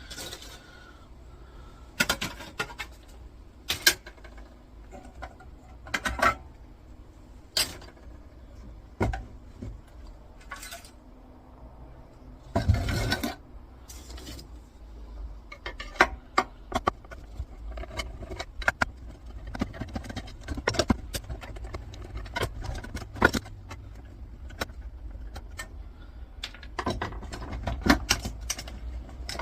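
Parts of an old electricity meter being handled and taken apart by hand: irregular clinks, clicks and knocks of metal and plastic pieces, sparse at first and coming thicker in the second half, with one brief louder scraping noise about halfway through.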